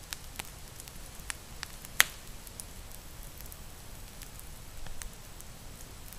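Campfire crackling, with scattered sharp pops from the burning wood, the loudest about two seconds in.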